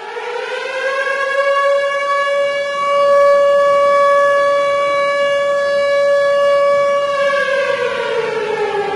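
Air-raid siren wailing: its pitch rises over the first second, holds one steady tone, then starts winding down about seven seconds in.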